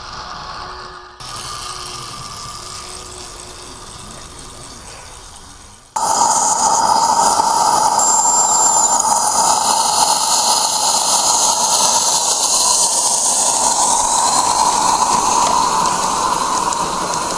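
A 16mm-scale live-steam locomotive hissing loudly and steadily as steam escapes, starting suddenly about six seconds in after a quieter stretch.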